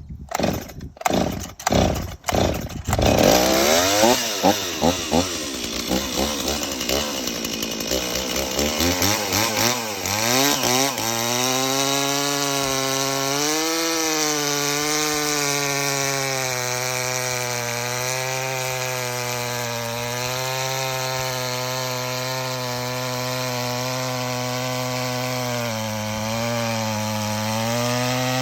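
Stihl 026 Pro two-stroke chainsaw starting: a few sharp sputtering pops, then the engine catches and runs unevenly with blips of revs. After about ten seconds it settles to a steady idle that wavers slightly in pitch.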